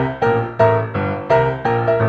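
Background piano music, notes struck in an even, quick rhythm of about three a second.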